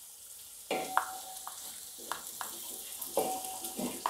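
Shallots and onions frying in oil in a wide metal uruli, stirred with a spatula: a steady sizzle under scraping strokes against the pot every second or so, several of them leaving a short ringing tone from the metal.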